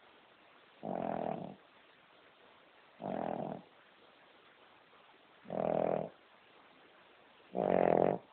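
King Charles Spaniel snoring loudly in deep sleep: four snores in a slow, even breathing rhythm, each lasting about half a second, about two seconds apart.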